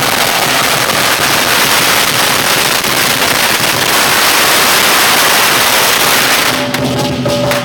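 Firecrackers going off on the street in a rapid, continuous crackle. The bangs merge into one dense racket that stops about a second before the end, when the lion dance percussion comes back in.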